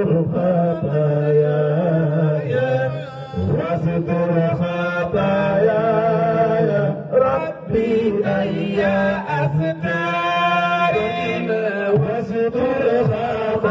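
A man chanting a song into a handheld microphone through amplification, in long held notes that bend and waver in pitch, over a steady low drone.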